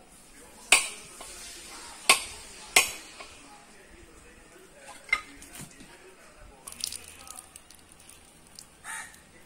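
Long chopping knife striking a husked coconut to crack its shell into halves: three sharp knocks in the first three seconds, then a lighter blow and a few smaller knocks as the shell splits open.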